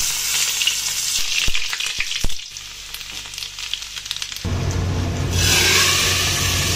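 Hot oil sizzling on an iron tawa as whole dried red chillies and cumin fry for a tadka, with a few sharp crackles in the first couple of seconds. About five seconds in the sizzle grows louder as the hot tadka is tipped into the cooked dal.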